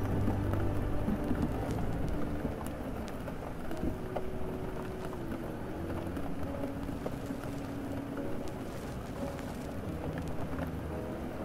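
Layered rain-and-city ambience: steady rain with a low rumble of traffic, under muffled music from a record player playing slow held notes that change every second or two, with scattered faint ticks.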